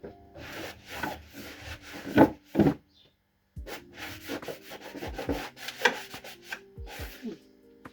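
Irregular rubbing and scraping strokes from food containers being handled and emptied, broken by a brief cut to silence about three seconds in.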